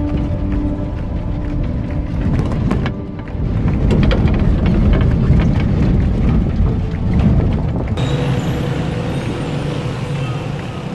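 Old off-road vehicle running over a rough dirt track, heard from inside the cabin: loud engine and road noise with frequent rattles and knocks from the body. About eight seconds in it gives way to the steadier noise of busy street traffic.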